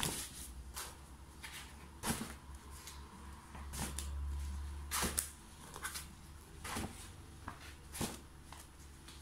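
Large pages of a wallpaper sample book being turned and laid flat by hand, with a short paper rustle or slap every second or two.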